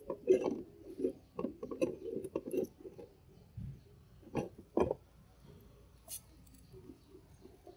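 Scattered light knocks and taps from a plastic basin of water being handled where it sits as a press weight, with two firmer knocks about four and a half seconds in and a sharp click shortly after.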